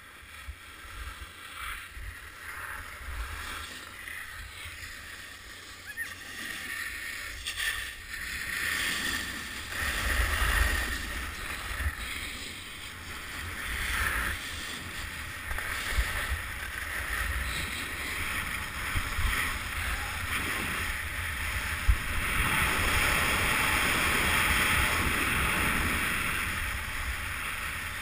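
Board edges scraping and hissing over packed snow on a downhill run, swelling with the turns and loudest in one long scrape near the end, with wind rumbling on the microphone.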